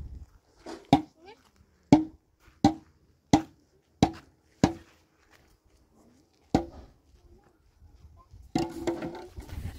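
Seven sharp knocks of a hard object striking something, each with a short ringing tone: six come in quick succession and one follows after a pause. Near the end there is a rough scraping or rustling.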